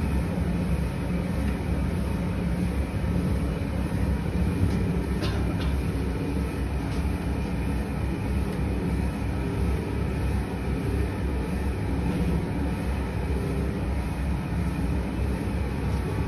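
Belt-driven cattle-feed mixer running steadily, its blade churning dry feed meal in the trough: an even low mechanical rumble with a steady hum, and a faint click about five seconds in.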